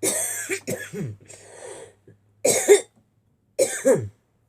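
A person coughing hard several times in a short fit, with a breath drawn in between the coughs.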